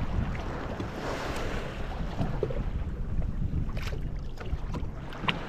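Water sloshing against a kayak hull, with a steady low rumble of wind on the microphone and a few scattered small clicks and knocks.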